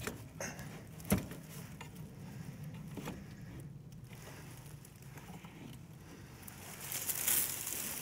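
Sheet-metal access panel of a packaged HVAC unit being handled and fitted into place: a few light clicks and taps, with one sharper metallic click about a second in. A brief rustling near the end.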